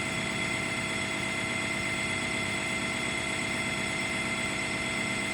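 Steady machine running noise with a constant high whine, unchanging throughout, with no separate clicks or knocks.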